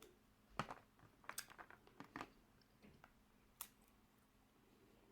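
Faint eating sounds from a seafood boil: a few short clicks and crunches of crab shell and chewing, spaced out over a few seconds with quiet between them.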